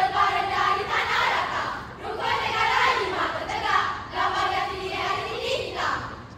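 A group of schoolgirls chanting together in unison in a rhythmic choral recitation, delivered in three phrases with short breaks about two and four seconds in. The voices stop shortly before the end.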